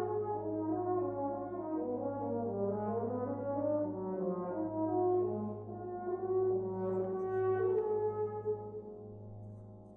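Brass band playing while marching: a moving melody of several parts over a low note held throughout, the music easing off near the end.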